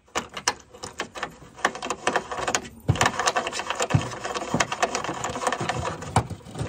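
Rapid, irregular metallic clicking from a small wrench turning a nut onto a light-mount bolt through the aluminum gunwale of a jon boat, with a couple of louder knocks in the middle.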